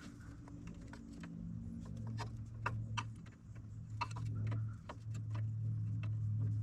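Scattered light clicks and clinks of tools and hydraulic hose fittings being handled, over a low steady hum that grows louder about two seconds in.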